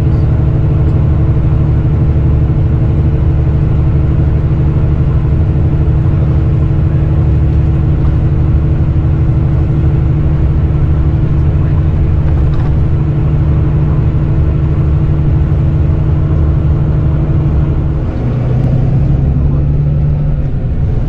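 Interior sound of a Volvo B9R coach under way: a steady engine drone with tyre and road noise at cruising speed. Near the end the engine note shifts lower and the level dips briefly.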